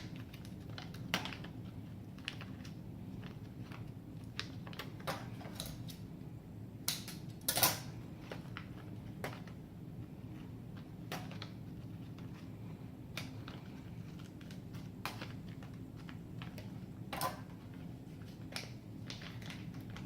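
Scattered clicks and crackles of a package being handled and cut open, over a steady low hum.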